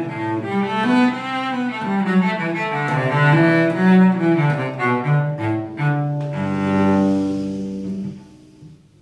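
Solo cello played with the bow: a melody of moving notes with vibrato, ending on a long held low note that dies away about eight seconds in as the bow lifts off the strings.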